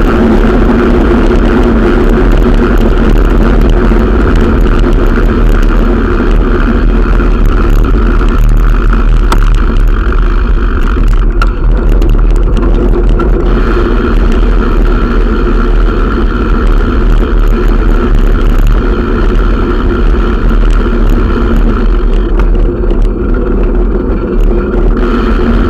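Steady, loud rushing noise of riding a bicycle, heard from a bike-mounted camera: wind on the microphone and tyres rolling on the pavement, with a constant hum under it.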